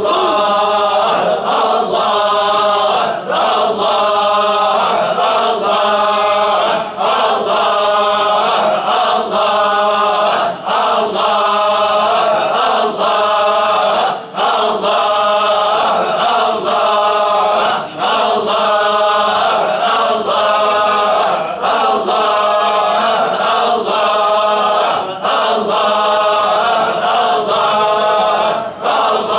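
A group of men chanting the single name 'Allah' together, over and over in a steady, even rhythm of about one and a half repetitions a second: Sufi dhikr of the Name.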